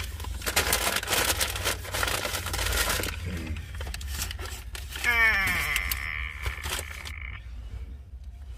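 Food packaging rustling and crinkling for about three seconds. About five seconds in comes a short pitched sound that slides down, with a high steady tone held for about two seconds after it.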